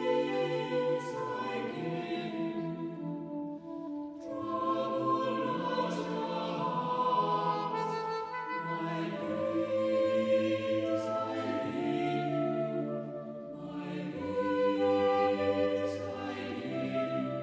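Choir singing a slow worship song in long held phrases, with instrumental accompaniment.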